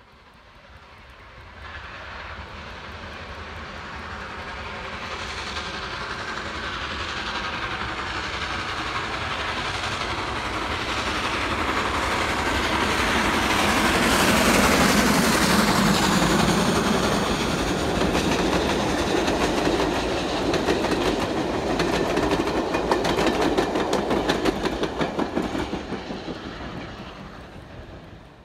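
Steam locomotive hauling a train of coaches past, working hard. The sound builds to its loudest about halfway as the engine goes by, with a falling pitch. Then the coaches follow with a rapid clickety-clack of wheels over the rail joints, fading out near the end.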